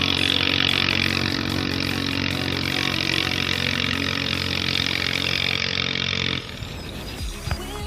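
Ketinting longtail boat engine running at steady high revs, then cutting off suddenly about six seconds in.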